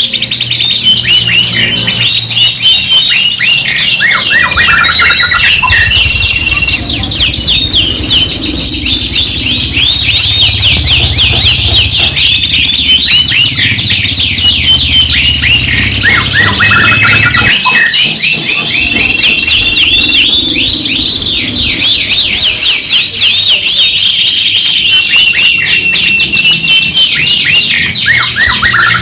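Several domestic canaries singing at once: a continuous, dense song of rapid high trills, rolls and chirps with some held whistled notes.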